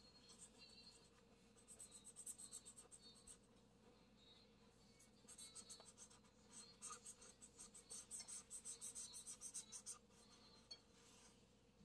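Felt-tip marker scratching on paper as an area is coloured in: faint, quick back-and-forth strokes in several runs with short pauses between.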